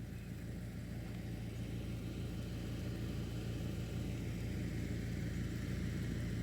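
Outdoor air-conditioning unit running with a steady low hum that masks the ice falling on the ground.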